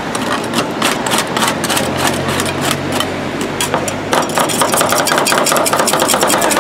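Two metal spatulas chopping rapidly on a rolled ice cream cold plate, clacking against the frozen steel as Oreo cookies are cut into the cream; the strikes come faster in the second half. A steady low hum sounds underneath for a couple of seconds in the middle.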